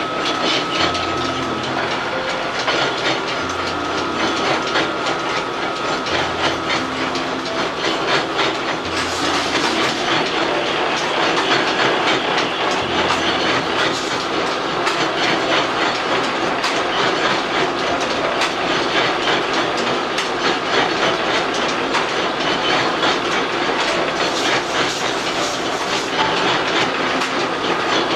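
Old noodle-making machine running with a steady, rapid mechanical clatter.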